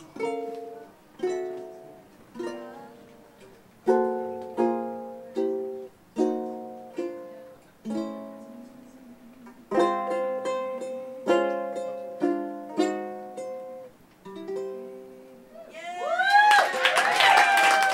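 Solo ukulele strummed in slow single chords, each left to ring and fade. Near the end the audience breaks into loud applause and cheering.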